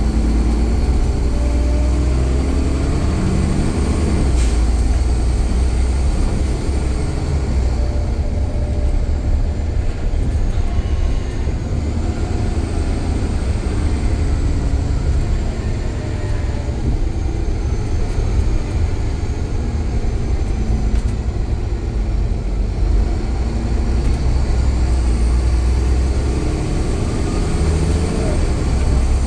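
Alexander Dennis Enviro500 double-deck bus running under way, a loud deep engine rumble that eases off about seven seconds in and builds again near the end. Faint whines glide up and down in pitch over it.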